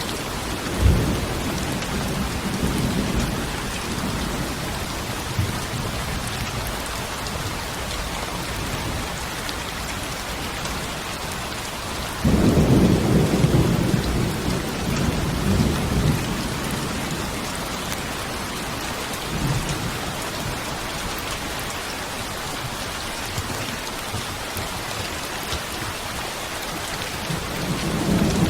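Steady rain falling, with rolling thunder. A loud thunderclap breaks in suddenly about halfway through and rumbles on for a few seconds, and fainter rumbles come near the start and the end.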